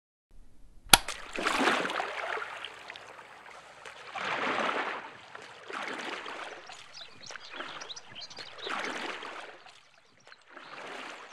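A sharp click about a second in, then water swishing and splashing in slow, regular swells about every two seconds, like the paddle strokes of a small wooden boat.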